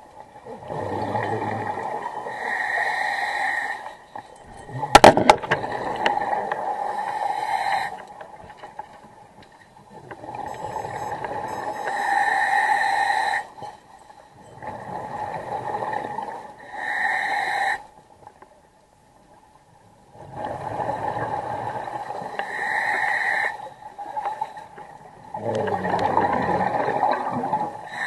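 Scuba diver breathing through a regulator underwater, heard through the camera housing. Each breath is a hissing inhalation followed by a bubbling exhalation, repeating every few seconds, with a pause of about two seconds after the middle. A single sharp knock comes about five seconds in.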